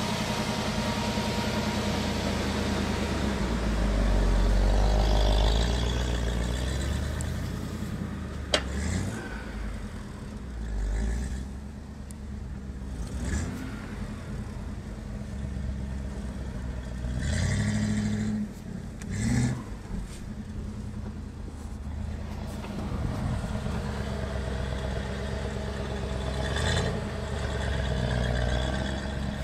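A 1969 Toyota Land Cruiser's engine idling steadily, swelling briefly about four seconds in. There is one sharp click about eight and a half seconds in, and a few short bumps later on.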